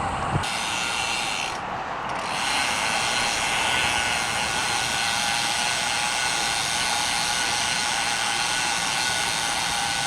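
Road bike's rear freewheel hub buzzing with rapid ratchet clicks while coasting. It breaks off briefly about two seconds in, then carries on.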